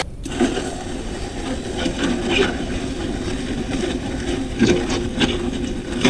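MudMixer portable concrete mixer running: its electric motor turns the auger spindle in the chute, churning dry concrete mix with hose water in a steady, gritty grinding.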